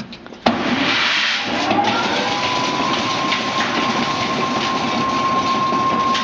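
Centrifugal deoiling machine spinning up: a sudden rush of noise starts about half a second in as the basket starts turning. Then a motor whine rises in pitch and settles into a steady tone over the continuous rushing of the spinning drum.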